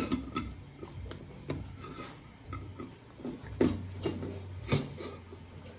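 Hands kneading soft wheat dough, a quiet rubbing with a few light knocks.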